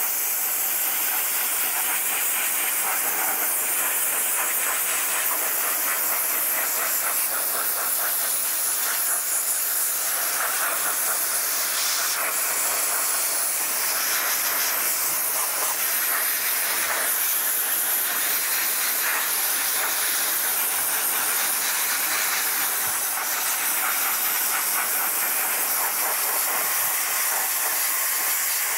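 Dry ice blaster firing compressed air and dry ice pellets through a narrow nozzle wand at an alloy wheel's hub and crevices: a steady, unbroken hiss.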